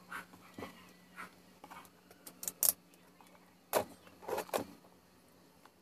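Scattered clicks and knocks of hands handling equipment on a wooden table, an analogue multimeter being taken hold of and moved, the loudest knocks a little past the middle. A faint steady hum sits underneath.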